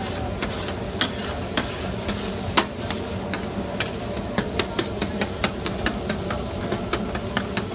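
Tikka meat frying in oil on a large flat metal griddle while a long-handled metal spatula stirs and scrapes it. A steady sizzle runs under sharp metallic clicks where the spatula strikes the griddle, and the clicks come much more often in the second half.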